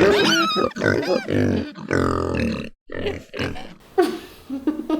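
A pig grunting in a rapid series of short calls, with a high squeal near the start.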